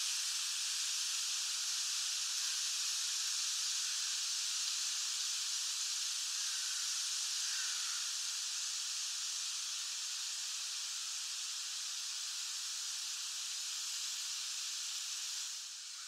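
A steady hiss of background noise, strongest in the high range, easing slightly near the end.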